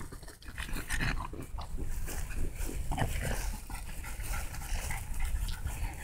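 French bulldog making short, repeated breathing and snuffling noises as it rolls on its back in the grass and gets back up.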